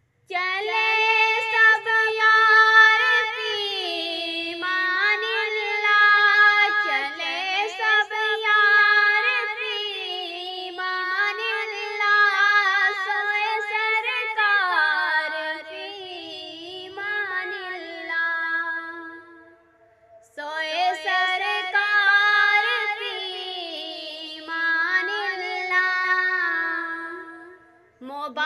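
A high solo voice singing an Urdu Hajj naat without instruments, in long, winding held notes. There is a short break about twenty seconds in, and another near the end.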